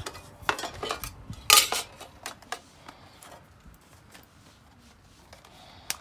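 Metal cookware and utensils being handled: a string of light clinks and taps, the sharpest about a second and a half in, then a few softer ticks.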